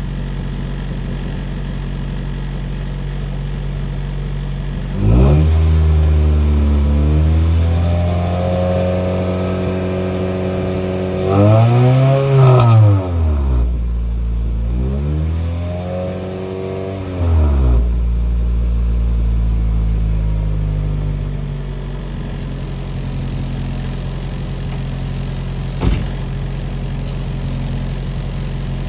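1996 Acura Integra GSR's DOHC VTEC four-cylinder engine breathing through a new aftermarket cat-back exhaust. It idles, is revved about five seconds in and held up for several seconds, is blipped higher twice, then settles back to idle. The license plate rattles along with it.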